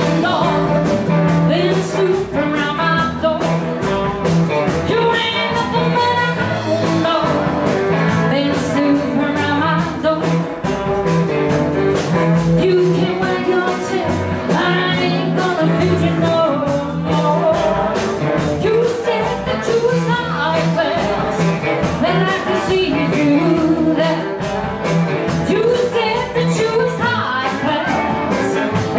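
Live rock-and-roll band playing, with a woman singing over electric and acoustic guitars and a fast, steady drum beat.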